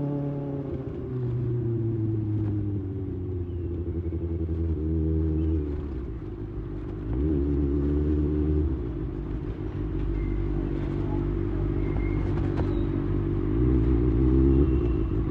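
Kawasaki Ninja ZX-6R inline-four running at low revs through an IXIL slip-on exhaust, its note stepping up and down a few times.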